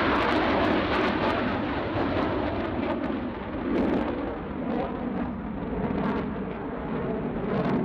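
Aircraft engine noise passing and fading into a low, rolling rumble.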